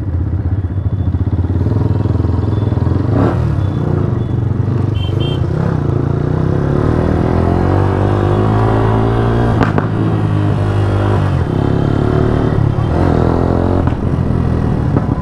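Yamaha R15S motorcycle's single-cylinder engine running through an aftermarket 'fire shot' exhaust, the engine note shifting with the throttle. Two sharp cracks stand out, about three and ten seconds in.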